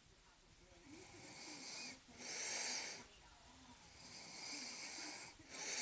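A person breathing heavily and wheezily close to the microphone: two audible in-and-out breaths, the second of each pair the louder, with a thin whistle on some breaths.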